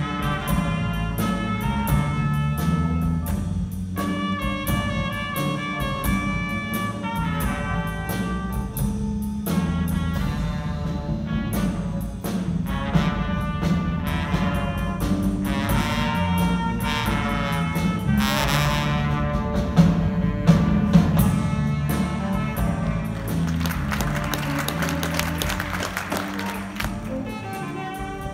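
Live band music from a horn section of trumpet, saxophones and trombone playing rhythmic, repeated lines over drum kit, keyboard and bass. The room's reverberation colours the sound.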